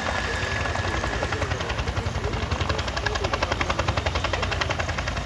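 Bell 212 helicopter's two-blade main rotor beating in a fast, steady pulse of about ten blade slaps a second, getting louder in the middle, as the helicopter comes in to land.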